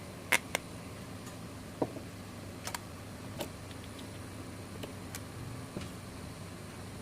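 Irregular light clicks and taps of small tools and parts during a smartphone screen disassembly, two sharp ones close together near the start, over a steady low hum.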